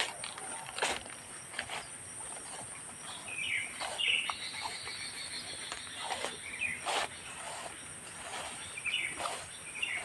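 Footsteps crunching and brushing through undergrowth at a walking pace, with birds chirping several times and a steady high insect drone.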